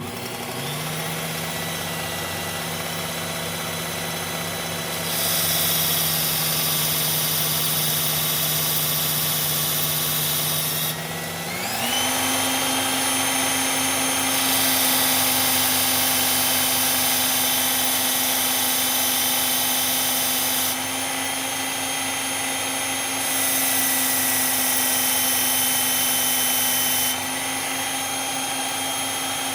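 Electric belt knife sharpener starting up and running with a steady motor hum, which steps up to a higher speed about 11 seconds in. Three long stretches of hissing grind where a steel knife blade is held against the moving abrasive belt to raise a burr on the edge.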